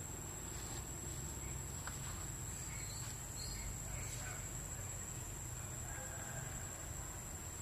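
Insects chirping in a continuous, steady high-pitched drone, over a low outdoor rumble, with a few faint short chirps partway through.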